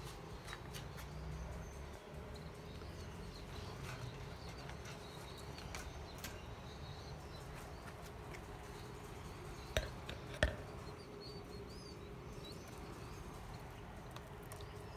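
Faint, high peeping of young chicks in a wire cage over a steady low hum, with light handling clicks and two sharp clicks about ten seconds in.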